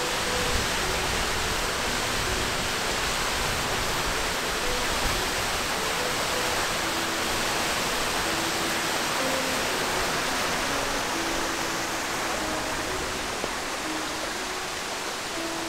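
A large waterfall pouring down, its water still running beneath the ice: a steady, even rushing noise.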